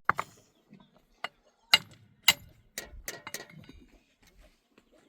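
A series of sharp, irregular knocks and clinks of hard objects, about seven over three and a half seconds, the loudest near two seconds in.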